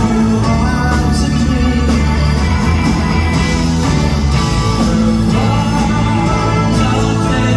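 Rock band playing live: electric guitars, bass, drums and organ, loud and continuous, heard from the audience through a phone's microphone.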